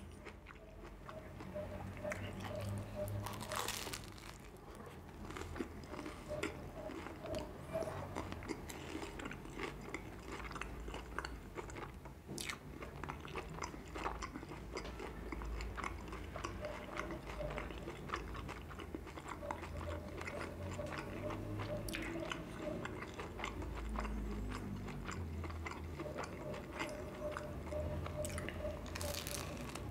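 Close-miked chewing and biting of a bread-roll sandwich with chicken sausage and green pepper: steady wet mouth sounds and clicks, with a few sharper crunchy bites now and then.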